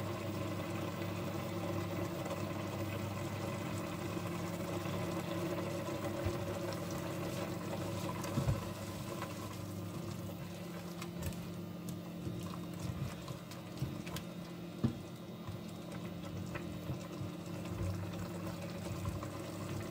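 A spoon stirring chicken and prawns in a steel pot, with a few light knocks against the pot, over a steady low mechanical hum.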